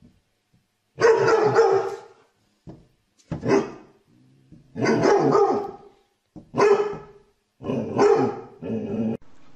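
A dog barking six times in a loose series. Some barks are short and two are drawn out to about a second each.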